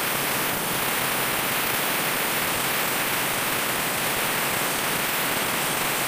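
Concrete cutting saw's King Eagle small petrol engine running close up, a loud, steady, even hiss-like noise that does not change.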